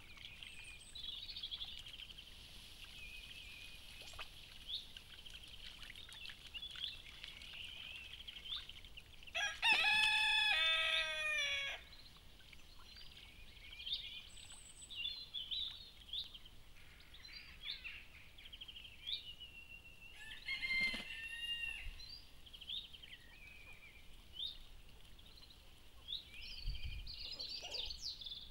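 A rooster crows once, loud and drawn out for about two seconds, about ten seconds in, and gives a shorter call about twenty-one seconds in. Short high bird chirps go on throughout.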